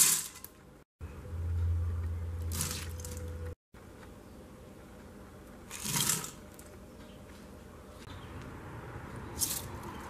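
Dry ingredients poured from a measuring cup into a stainless steel Instant Pot inner pot, in separate short pours: dried beans rattle in at the start, another pour about two and a half seconds in, frozen vegetables about six seconds in and rice near the end. A low hum runs for a couple of seconds early on.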